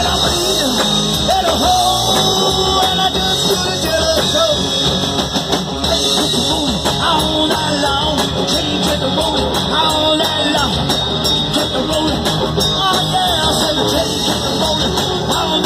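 Live rock band playing: electric guitars, bass guitar and drum kit, with a lead singer's voice over them.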